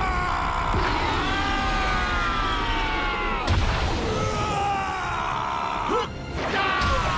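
Anime fight soundtrack: music under battle sound effects, with several falling tones and sharp impact hits about three and a half and six seconds in.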